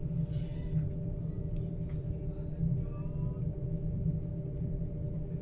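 Inside a moving train carriage: a steady low rumble with a constant electrical hum as the train pulls away from the station.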